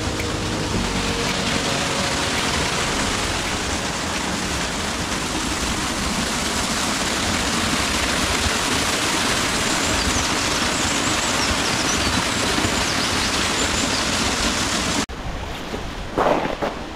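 Waterfall pouring, a loud, steady rush of water, with background music fading out in the first few seconds. The rush cuts off abruptly near the end, leaving quieter gusts of wind on the microphone.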